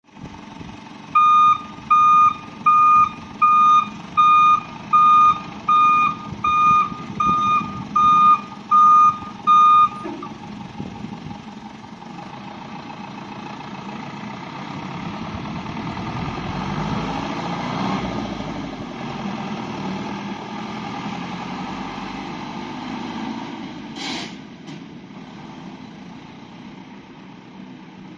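Truck reversing alarm beeping about twelve times, a little over one beep a second, then stopping; the truck's engine runs on underneath and grows louder for a while before settling. A single sharp clack sounds near the end.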